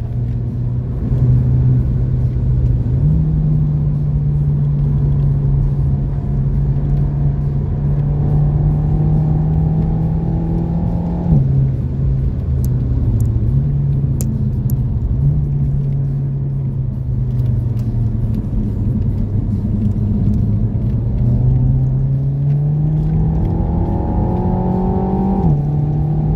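Renault Megane RS Trophy's turbocharged four-cylinder engine pulling through the gears, heard from inside the cabin. The engine note climbs steadily and drops sharply at upshifts, about eleven seconds in and again near the end.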